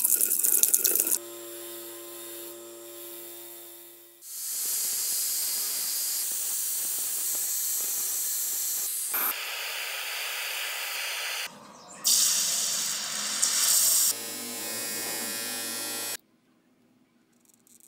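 A run of workshop power-tool sounds: a short loud spraying blast, a steady electric-motor hum, then an angle grinder grinding a steel rod with a loud, even, high hiss for about seven seconds. More grinding follows, then the hum of a bench grinder wheel, which stops about two seconds before the end.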